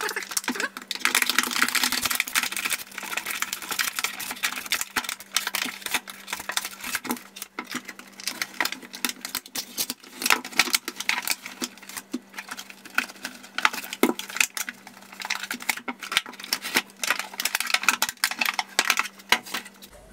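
Stiff clear plastic blister packaging being cut open and pried apart by hand: a busy run of crackling, crinkling and sharp clicks as the plastic shell bends and snaps, with a faint steady hum underneath.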